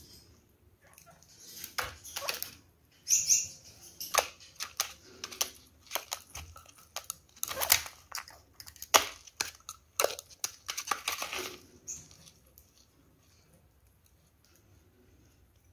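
Kakariki parakeets feeding at a plastic dish of grated carrot: irregular beak clicks, taps and scrabbling scrapes on the dish and the seed-strewn cage floor. The sounds die away for the last few seconds.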